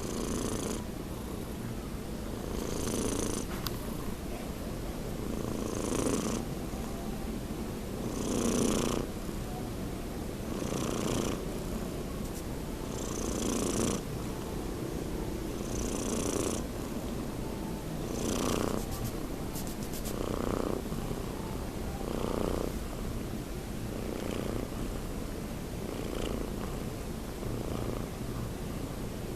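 A young cat snoring in its sleep: a raspy breath-noise swelling and fading about once every two to three seconds, in a steady rhythm.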